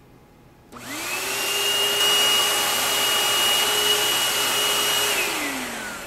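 Vacuum cleaner motor switching on with a quickly rising whine, running steadily for about four seconds, then switching off and winding down with a falling whine.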